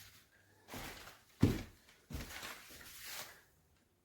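Handling noise with two thumps, a sharp one about a second and a half in and a second just after two seconds.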